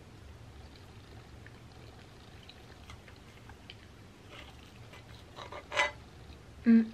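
Quiet close-up eating sounds: a few faint clicks of a metal fork and mouth noises, then about five and a half seconds in a short scrape as the fork cuts into a cookie in a cast-iron skillet. A brief hummed voice sound comes near the end.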